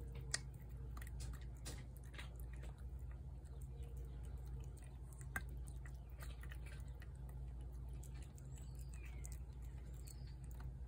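Feral tabby cat eating wet food from a plate: faint, irregular chewing and clicking over a steady low hum.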